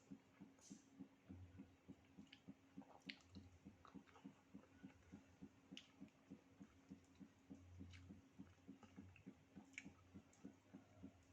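Near silence with a faint, even ticking about four to five times a second and a few scattered soft clicks.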